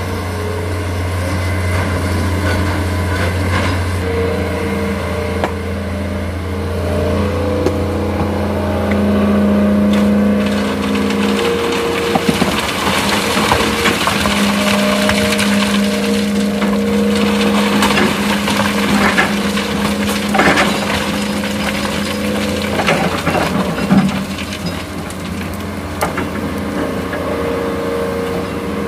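Excavator's diesel engine working under load, its pitch shifting as it works, with crunching and knocks of sand and stones being scooped and dropped into a dump truck.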